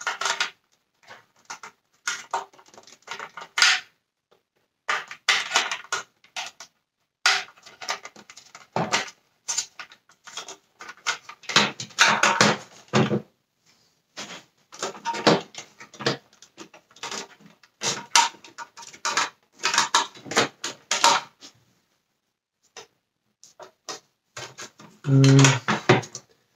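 Plastic housing parts of a Dyson Cinetic Big Ball vacuum cleaner being handled and fitted together: irregular clicks, knocks and scraping rustles of plastic on plastic. Near the end there is a brief low hum.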